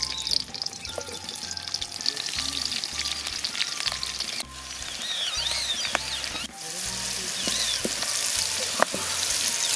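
Sliced onions and green chillies sizzling in hot oil in an aluminium kadai over a wood fire. The sizzle breaks off twice and is louder in the second half.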